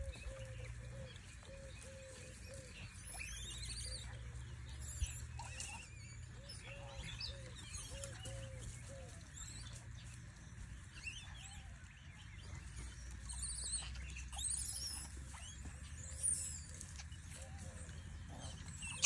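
Wild birds calling: a low hooting note repeated a few times a second, which drops out for a while and comes back, along with scattered high chirps and quick whistled sweeps, over a steady low rumble.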